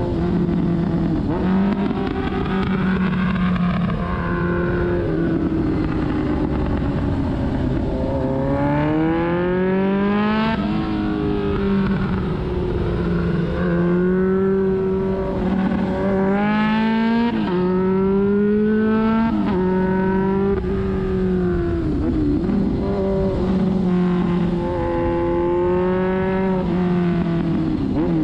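Kawasaki ZRX's inline-four engine under way, its pitch rising and falling over and over as the rider accelerates, shifts and eases off for bends, over steady wind rush.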